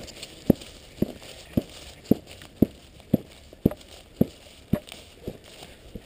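Footsteps walking at an even pace on grass, a dull thud about twice a second.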